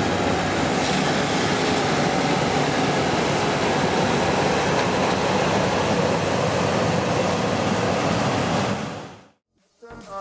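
Claas Trion 530 combine harvester running under load while harvesting maize: a steady, dense mechanical din of engine and threshing. It fades in at the start and fades out about nine seconds in.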